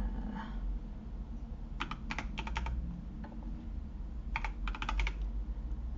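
Typing on a computer keyboard in two short bursts of keystrokes, one about two seconds in and another about four and a half seconds in.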